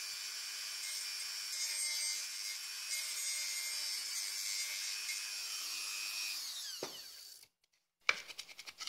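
High-pitched whine of a small electric motor spinning at speed, several tones held steady over a faint buzzing hum, then winding down with falling pitch and stopping near the end; a few small handling clicks follow.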